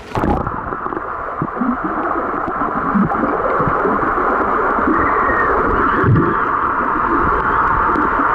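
Splash as the microphone plunges into the swimming pool, then muffled underwater sound of a swimmer's arm strokes and kicks churning the water. A steady underwater hiss runs under irregular low thumps.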